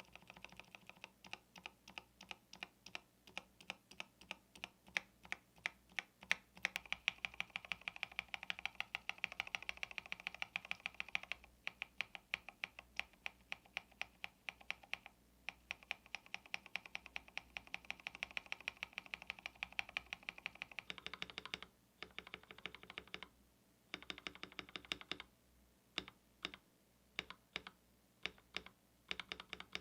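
Keys of a KBD67 Lite R2 custom mechanical keyboard pressed in quick succession, a stream of clacks several a second, in a stabilizer sound test of the long stabilized keys. About two-thirds through, the presses thin out to separate clacks with short pauses.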